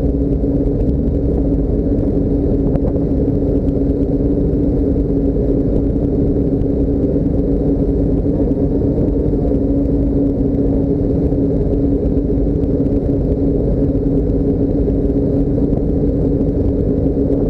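Motor vehicle running at a steady pace: a constant low drone of engine and road noise at one unchanging pitch, with no revving or change in speed.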